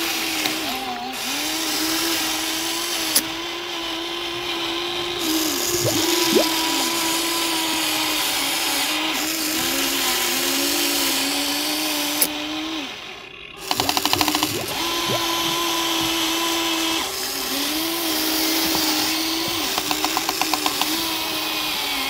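Small electric motor of a remote-control toy vehicle whining steadily, its pitch wavering as it runs. It cuts out briefly a little past halfway, then starts again with bursts of rapid ticking.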